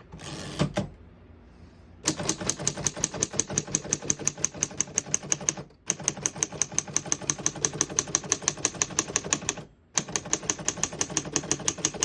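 1936 Underwood Universal portable typewriter being typed on: a steady run of sharp key strikes at about six or seven a second, with two brief pauses. A short scrape comes about half a second in, before the typing starts.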